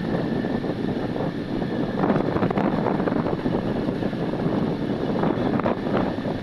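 Godrej top-load fully automatic washing machine running, a steady rushing, churning noise of water and motor.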